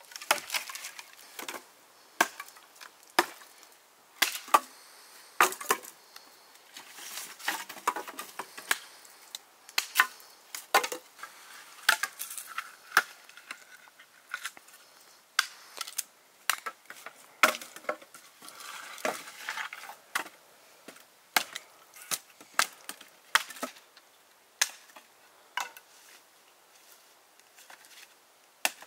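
A knife chopping on a wooden cutting board: sharp, irregular strokes roughly one a second, typical of cutting vegetables by hand.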